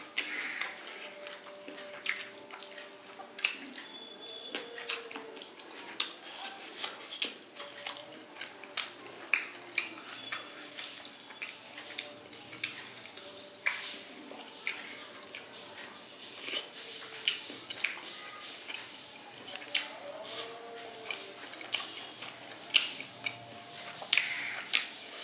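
Close-up eating sounds of a person eating rice and fish curry by hand: irregular wet lip smacks and chewing clicks, several a second, with fingers squishing and mixing rice on a plate.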